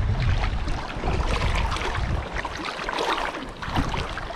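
Small choppy waves lapping and splashing around a wading angler, many small splashes close by, with wind rumbling on the microphone in the first second.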